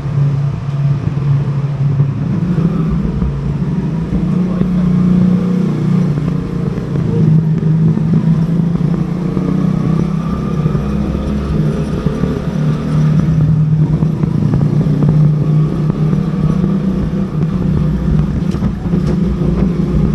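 Motorcycle engine running steadily at a constant cruising speed, with a low, even hum, ridden through a concrete tunnel.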